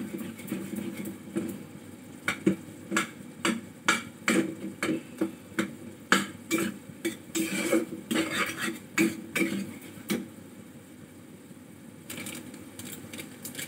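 Metal spatula knocking and scraping against a metal cooking pan as food is stirred, with sharp clinks about twice a second from about two seconds in until about ten seconds in.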